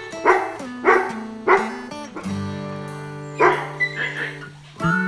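Background music with plucked guitar and held notes, punctuated by short bark-like hits about every 0.6 s. A new sustained tone comes in near the end.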